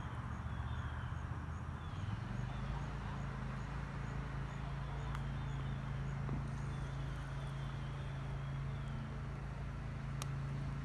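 A steady low motor hum, settling in about two seconds in, with faint high chirps repeating over it.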